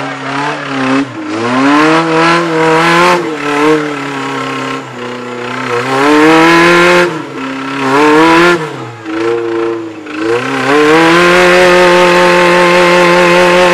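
Flat-fender Jeep's engine revving hard in about six quick bursts, rising and falling as it claws over a buried-tyre obstacle with its wheels spinning in the dirt. About ten seconds in it is held at high revs.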